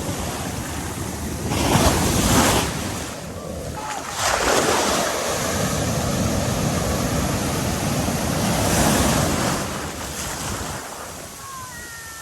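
Ocean surf: waves breaking and washing in, with wind buffeting the microphone. A wave surges about two seconds in, and a longer, louder wash runs from about four seconds to ten before it dies down.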